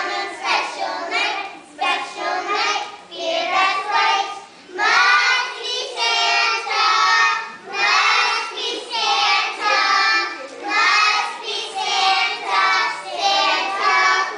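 A group of young children singing a song together, in short phrases with brief dips between them.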